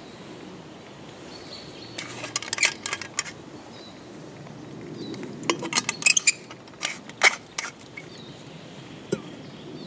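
Sharp clinks and clicks of small hard objects being handled, in two quick flurries, about two seconds in and again from about five and a half to seven and a half seconds in, with one more click near the end.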